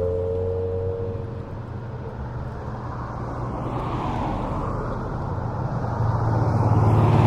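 Traffic on a busy highway: a vehicle's engine tone drops in pitch and fades as it passes in the first second or so, then a steady wash of engine and tyre noise, with cars passing about four and seven seconds in.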